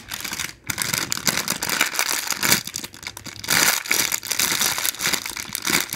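Clear plastic packaging bag crinkling as a soft foam squishy toy is squeezed inside it, in a run of irregular squeezes with louder crackles around the middle.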